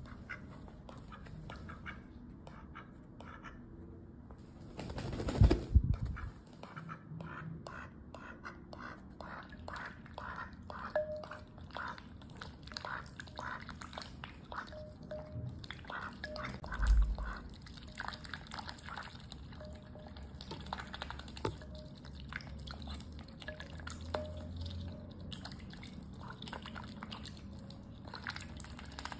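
White domestic duck dabbling its bill in a glass bowl of water with chopped tomato and spinach: quick wet clicks, slurps and drips, about two or three bill strokes a second. Two louder low thumps come about five and seventeen seconds in.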